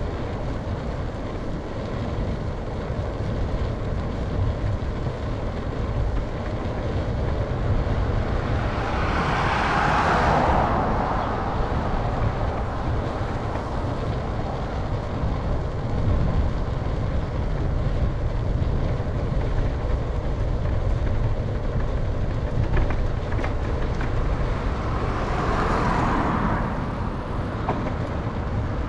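Steady wind rumble on the microphone and road noise from a moving bicycle. Two motor vehicles pass, each swelling up and fading away, one about ten seconds in and another near the end.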